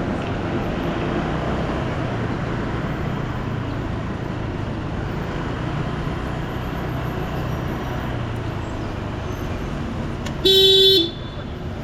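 Steady road-traffic noise with engines running, then about ten seconds in a single short, loud vehicle horn blast.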